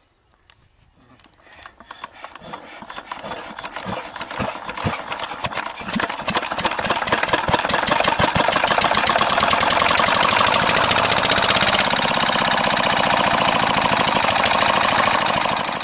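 Homemade electric cardboard model diesel engine running with a rapid mechanical knocking. The knocks start slow and faint, then speed up and grow louder over the first several seconds, and settle into a fast, steady rattle.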